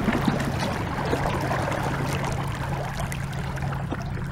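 Water rushing and splashing along a small boat's hull as it moves through calm water, with a steady low hum underneath and scattered small splashes.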